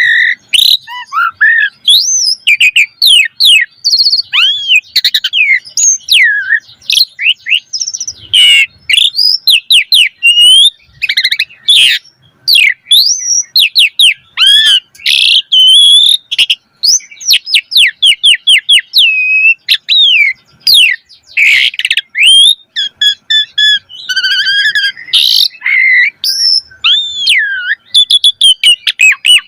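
Pied starling (jalak suren) in full, vigorous song: a fast, unbroken stream of varied whistles, sweeping up-and-down notes and rapid chattering trills. The song is packed with borrowed phrases (isian), the mimicry keepers prize in this bird.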